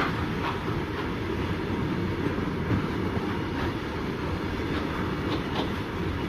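A freight train's wagons rolling past on the rails: a steady rumble of wheels on track with a few faint clicks, likely from wheels crossing rail joints.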